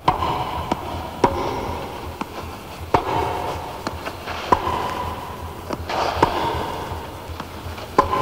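Tennis rally: a ball struck by rackets about every 1.7 seconds, each hit a sharp pock with a brief ring, with fainter ball bounces in between.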